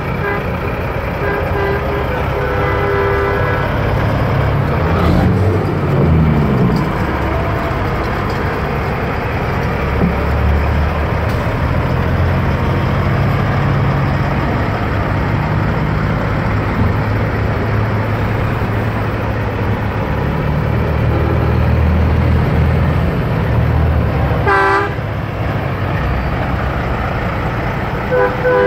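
Semi trucks' diesel engines rumbling as they pass close by, with air horn blasts: one about two seconds in, a short one near the end, and another right at the end.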